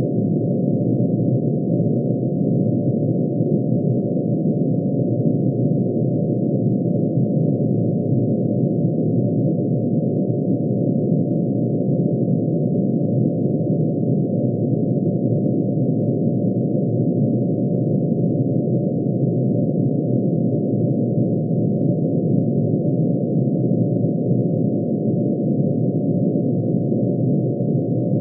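Synthesized tone built from mercury's atomic emission spectrum: one sine wave for each spectral line, pitch-shifted down into hearing range and summed into a dense, steady, unchanging drone of many pitches.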